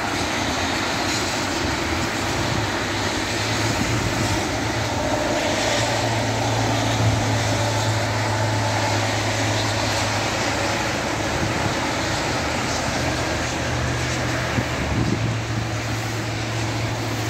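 Steady rush of freeway traffic on a rain-wet road: tyres hissing on the wet pavement under a low engine drone from passing trucks and cars.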